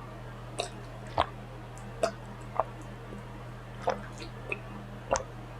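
Short wet mouth clicks and smacks, about seven spaced unevenly, as air is swallowed to work up a burp. A steady low hum runs underneath.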